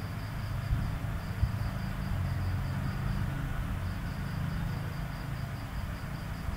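A cricket chirping steadily, a thin high pulsing at about five chirps a second that pauses briefly twice, over a low steady hum in the room.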